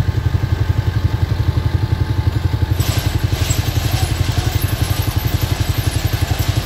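Heavy machine's diesel engine running steadily with a fast, even pulse. About three seconds in, a hiss joins it.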